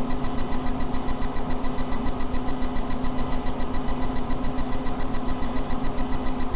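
Steady machine hum with a fast, even pulsing in its loudness, like a fan or small motor running without a break.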